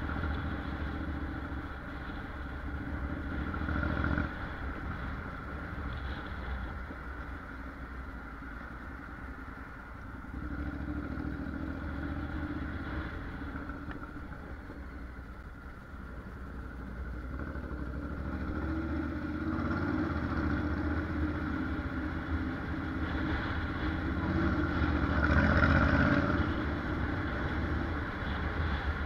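Honda NC750X DCT's parallel-twin engine running at low speed as the motorcycle rides through town streets, heard from on the bike. It grows louder for a stretch in the last third, as the engine pulls harder.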